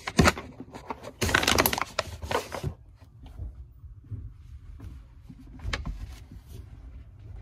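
A sharp knock, then about a second and a half of loud rustling, followed by fainter scattered knocks and shuffling.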